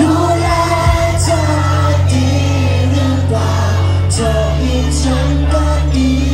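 Live pop band playing a song: a sung vocal line over steady bass notes and drums with cymbal hits.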